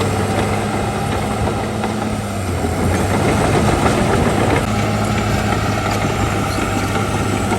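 Heavy diesel engine of earthmoving equipment running steadily, with a rougher, noisier stretch lasting about two seconds in the middle.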